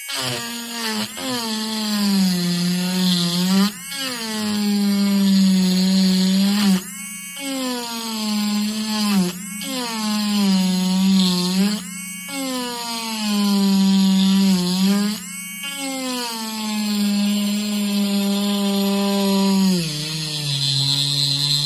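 Small handheld pen-style rotary grinder with a metal burr grinding into an epoxy resin coaster. Its motor whines, the pitch sagging as the burr bites in and climbing back as the load eases, over and over, with a gritty grinding hiss on top and a few brief breaks.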